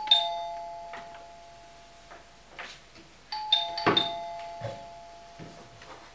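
Two-tone doorbell chime, a higher note then a lower one, rung twice about three seconds apart, each ring fading away over about two seconds. A sharp knock lands during the second ring, with a few softer clicks around it.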